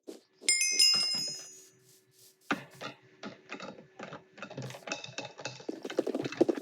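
Typing on a computer keyboard, quick key clicks. About half a second in, a short chime sounds and fades over a second or so. Typing resumes after a brief pause.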